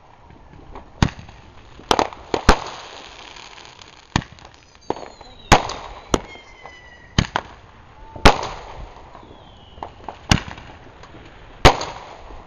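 Fireworks going off: about eight sharp bangs at irregular intervals, each trailing off in a crackling hiss. A few whistles glide down in pitch about four to six seconds in, and another near the ninth second.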